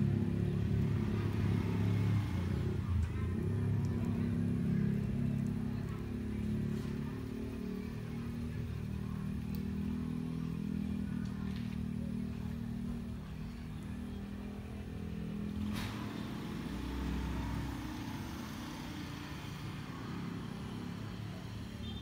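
A motor vehicle's engine running steadily out of sight, loudest at first and slowly fading. A single sharp click about two-thirds of the way through.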